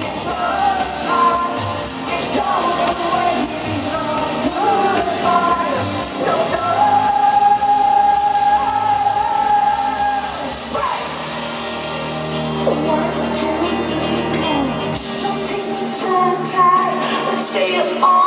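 Live indie-pop band playing with sung vocals over guitars and a full band, including one long held sung note in the middle.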